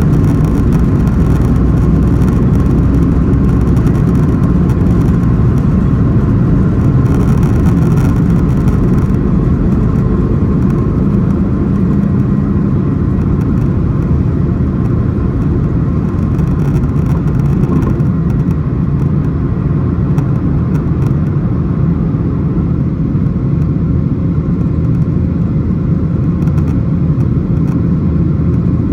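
Cabin noise of a Boeing 737-900ER under high thrust on takeoff: the CFM56 jet engines running steadily with a deep rumble and a faint steady whine. The high hiss thins out about nine seconds in.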